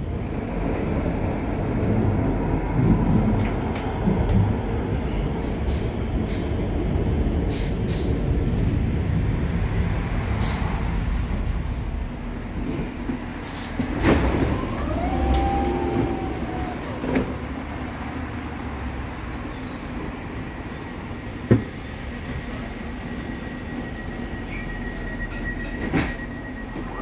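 Interior of a U-Bahn/light-rail car running on the tracks: steady low rumble of wheels on rail with scattered knocks, and a brief curving wheel squeal about midway. Near the end the rumble eases as the car stands at a platform, and a steady high tone sounds.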